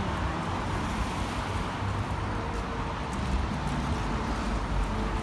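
Street traffic noise: a steady rumble of cars passing on a city road.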